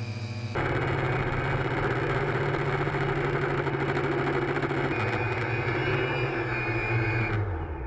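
X8 multirotor's electric motors and propellers droning steadily with a rushing wash of air, heard from a camera on the frame. The pitch and level jump abruptly about half a second in and again about five seconds in, where flight clips are cut together.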